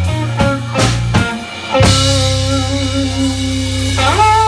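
Live rock band playing electric guitar, bass guitar and drums: a choppy, stop-start rhythm of hits, then about two seconds in a crash into held ringing notes, with a note sliding up in pitch near the end.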